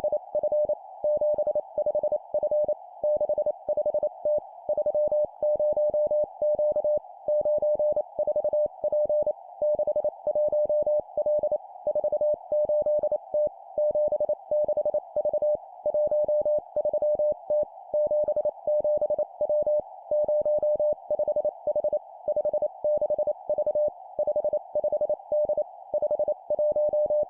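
Morse code (CW) practice tone keyed at 25 words per minute, one steady tone in quick dots and dashes sent as three-character groups of two digits and a letter, with short gaps between groups. It plays over a steady hiss, like a receiver's filtered band noise.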